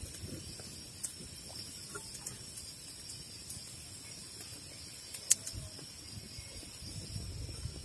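Forest ambience: a steady high-pitched insect drone over a low rumble, with a few sharp clicks, the loudest about five seconds in.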